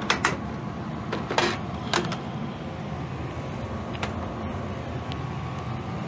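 Steady whoosh of the heat pump's indoor blower moving air through the ductwork, with a few sharp clicks and taps from handling the sheet-metal equipment; the loudest tap comes about a second and a half in.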